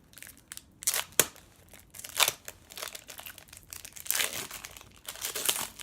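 Crinkling and rustling of hockey card packs and cards being handled, in irregular bursts with sharp snaps about a second in and just after two seconds.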